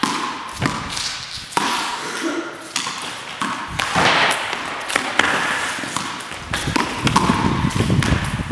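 Irregular thuds and taps of footsteps on a tiled floor, echoing in a large, empty hall.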